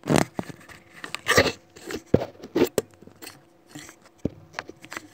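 Handling noise from a handheld phone held close to its microphone: irregular crackles, rubs and knocks, about a dozen spread unevenly, the loudest near the very start.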